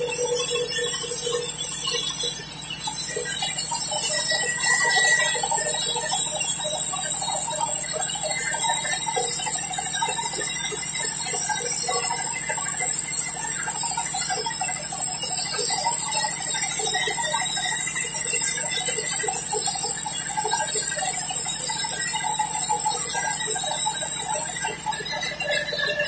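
Sawmill band saw ripping a mahogany plank lengthwise: a steady high hiss of the blade cutting through the wood, with uneven scraping underneath. The hiss drops away about a second before the end.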